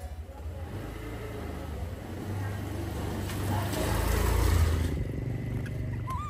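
Motor scooter engine running as the scooter pulls away and passes close by, growing louder to a peak about four seconds in, then easing off.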